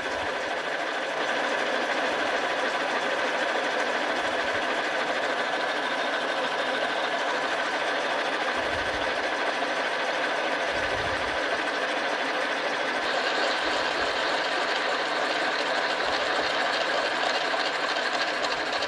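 Carlton radial arm drill running at 200 RPM under power down-feed, a 1-inch twist drill cutting through a metal workpiece: a steady machine run with a constant high-pitched tone, growing a little hissier about two-thirds of the way in.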